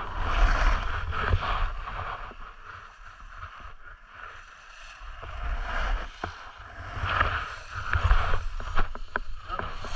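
Snowboard sliding and carving down a snowy piste, the board scraping over the snow in long swishes, with wind rumbling on the camera microphone. It eases off for a couple of seconds in the middle, then swells again with a few sharp knocks.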